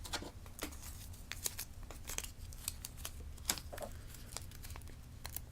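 Light crinkling and scattered small clicks of packaging being handled and opened by hand.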